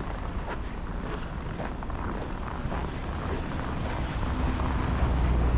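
Low rumble of street traffic with wind on the microphone. A vehicle grows louder near the end as it approaches.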